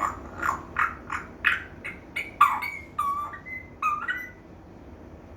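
African grey parrot calling: a quick run of short, clipped calls about two or three a second, then a few whistled notes that slide in pitch, stopping about four seconds in.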